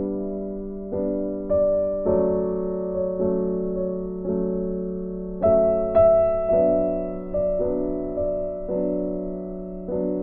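Background music: a gentle piano melody, its notes struck and fading one after another.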